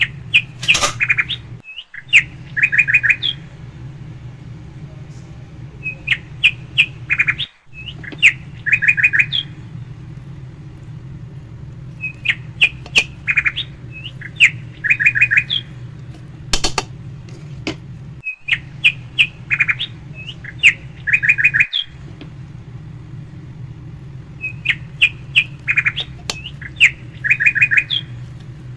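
Bird chirping in short repeated phrases of sharp chirps and quick trills, about every six seconds, over a steady low hum.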